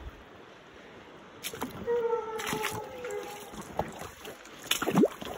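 Coonhounds baying on a cold trail: one long drawn-out bawl about two seconds in and a louder short call near the end, over the rustle and crunch of someone pushing through brush.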